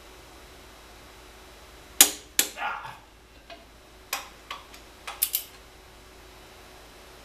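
Sharp metallic clicks and clanks from a long socket wrench on the flywheel bolts as they are tightened down, with a screwdriver wedged in the flywheel's ring-gear teeth to hold it. The loudest click comes about two seconds in, and about nine more follow over the next three and a half seconds.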